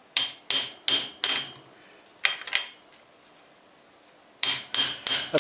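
Hammer striking a steel bicycle spanner fitted on the bottom bracket locknut, to loosen the nut: sharp metallic clanks with a ringing note. Four quick blows, two more about two seconds in, a pause, then another run of blows near the end.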